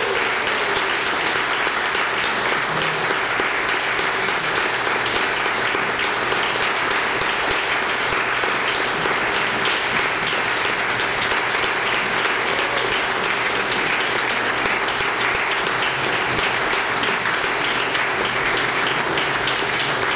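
Audience applauding steadily: many hands clapping at once in a hall.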